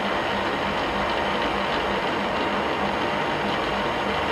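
Milling machine's table power feed running steadily as it drives the table along its longitudinal travel, with a faint regular pulse about three times a second.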